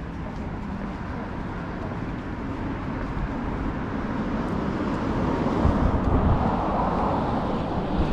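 Road traffic noise with a motor vehicle passing close, the rushing sound building about halfway through and loudest near the end.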